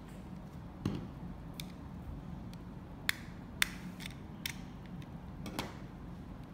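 Sharp clicks and snaps of small plastic parts being pried apart and handled, about eight in all, the loudest two about three seconds in, over a steady low hum.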